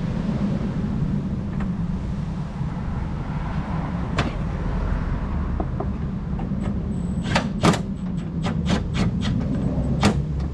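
Sharp clicks and taps from hand work on the car's headlight-area screws and plastic trim: one about four seconds in, then a quick irregular run of about eight in the last few seconds. A steady low rumble runs underneath throughout.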